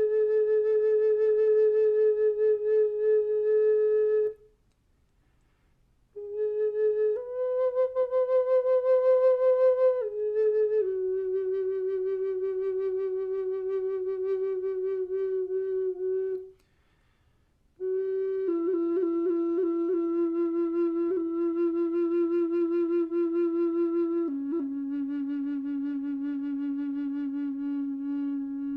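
Flute-like wind instrument playing a slow meditative line of long held notes with a slight waver, each lasting several seconds, broken by two short breath pauses. The pitch steps up once, then moves lower note by note.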